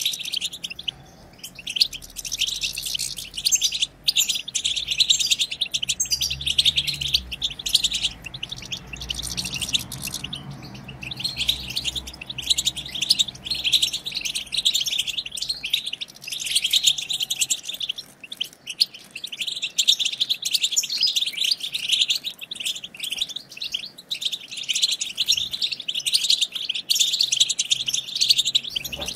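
European goldfinches chattering and twittering without a break, rapid high-pitched calls overlapping one another, the fast 'batbata' chatter of goldfinches.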